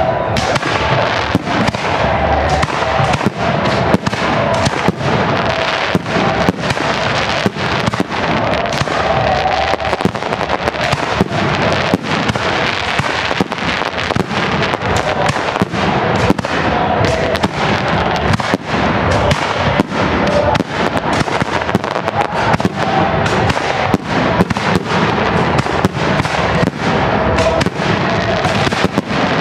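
Fireworks display: aerial shells bursting in a dense, unbroken barrage of bangs, several reports a second, over continuous crackling.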